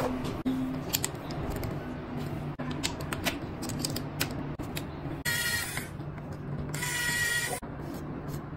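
Small clicks and taps of tools and gloved fingers handling an opened phone in a plastic repair mould, with two short crackling rips about five and seven seconds in as clear protective film is peeled off the phone.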